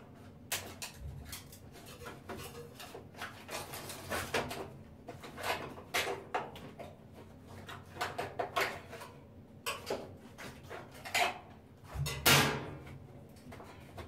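A flat metal blade scraping and prying at the seam between a Kenmore top-loading washer's top panel and its plastic console end cap, giving irregular clicks, scrapes and small knocks as she works at the hidden clips. A louder knock comes near the end.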